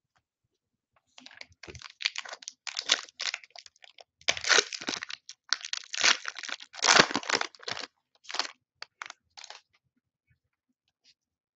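A plastic trading-card pack wrapper being torn open and crinkled by hand: a run of crackly rustling for several seconds, trailing off into a few short crinkles.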